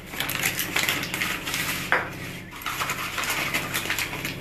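Rustling and light clattering as a flour bag and kitchen things are handled at a table, with a sharper knock about two seconds in.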